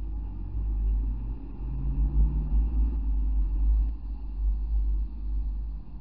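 Chevrolet Camaro being driven, with a heavy low rumble and an engine note that climbs briefly about two seconds in as the car picks up speed.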